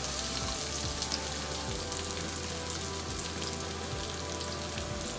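Garlic and onion sautéing in oil in a frying pan: a steady sizzle with fine crackles.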